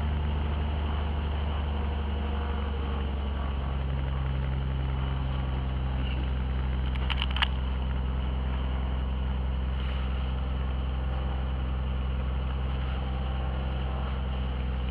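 A light high-wing plane's piston engine and propeller running steadily, heard from inside the cabin as the plane moves along the ground. A short click about seven seconds in.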